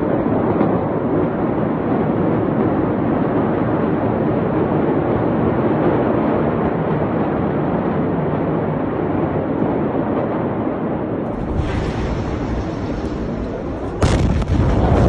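Steady rushing noise that deepens about 11 seconds in, then the sudden crack of the massive ammonium nitrate explosion near the end, followed by a heavy low rumble.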